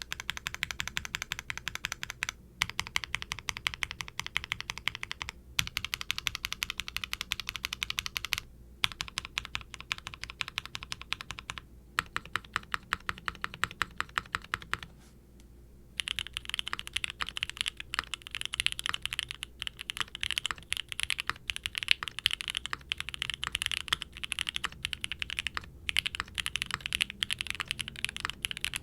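Steady typing on a Qwertykeys QK60 R3 mechanical keyboard with lightly re-lubed Gateron Oil King linear switches, a carbon fibre plate and GMK double-shot ABS keycaps: fast runs of keystrokes with brief pauses every few seconds. After a longer pause about 15 seconds in, the keystrokes sound sharper and louder.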